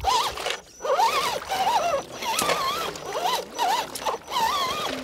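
Electric motor and drivetrain of a 1/10-scale RC crawler truck whining in short bursts, the pitch rising and falling as the throttle is worked while it climbs through mud and water.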